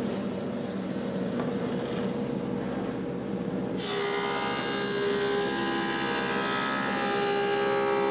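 Woodmaster planer with a helical cutterhead running steadily. About four seconds in a board feeds into the cutters and the sound suddenly turns louder and brighter, with many high whining tones, as it planes the wood.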